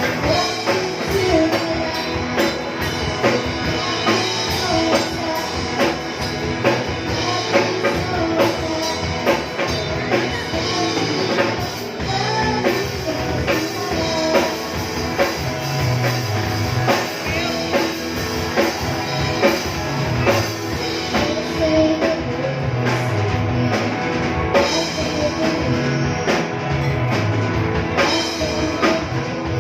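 Rock band playing live: drum kit, guitars and bass under a singer's lead vocal. A bass line comes up strongly about halfway through.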